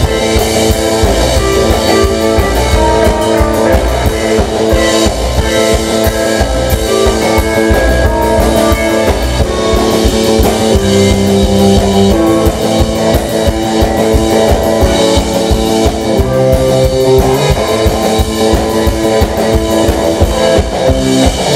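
Live rock band playing loud: electric guitars over a steady drum kit beat.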